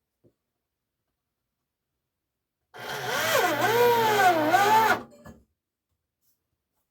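A power drill running for about two seconds. Its motor pitch dips and recovers twice as it bogs under load, then it stops suddenly.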